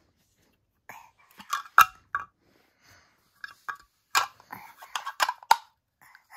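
Hard toy pieces being handled and knocked together: an irregular run of sharp clicks and clacks, loudest about two seconds in and again between four and five and a half seconds.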